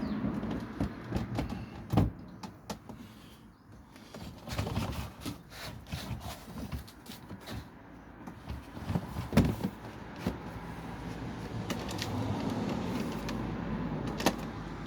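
Scattered knocks, clunks and clicks of things being handled and set in place in a vehicle's cargo area, with three sharper thumps about two seconds in, near the middle and near the end.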